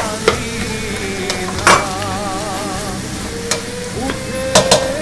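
Peppers sizzling as they fry in a pan while a spoon stirs them, knocking against the pan about five times.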